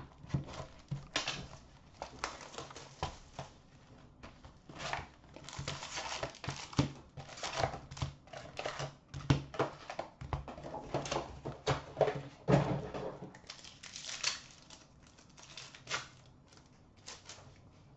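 Hobby box of hockey card packs being opened and the packs handled and stacked, then a pack wrapper torn open: irregular crinkling and rustling with light taps.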